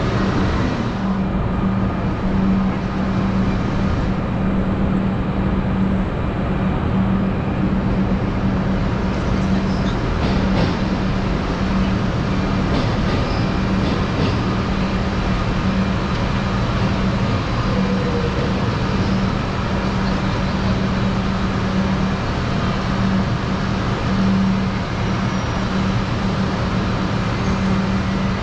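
Steady low drone of an idling vehicle engine, over a constant wash of busy station noise.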